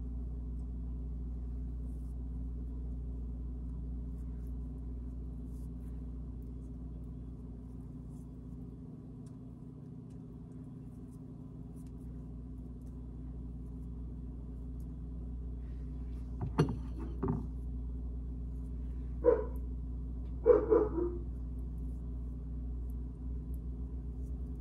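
Steady low hum throughout. Over a few seconds in the last third comes a handful of short, sharp animal calls, which are the loudest sounds.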